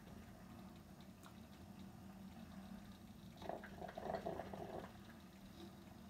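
Moccamaster drip coffee maker brewing: a faint bubbling and gurgling that swells into a short run of sputters between about three and five seconds in, over a low steady hum.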